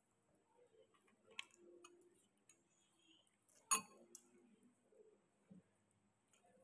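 Quiet eating sounds close to the microphone: faint chewing and a few small clicks, the sharpest and loudest one a little past halfway.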